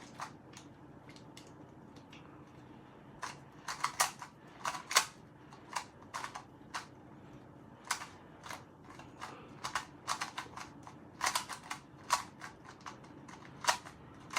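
Plastic 2x2 Rubik's cube being turned by hand, its layers clicking and clacking in irregular quick runs of turns with short pauses between.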